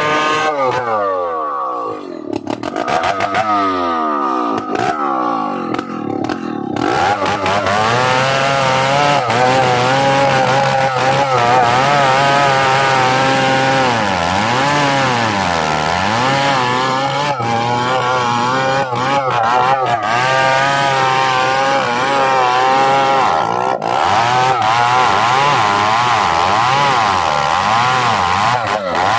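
Chainsaw running at high revs while cutting wood. Its pitch sweeps down several times in the first few seconds, then holds steady, dipping twice near the middle as the engine bogs under load.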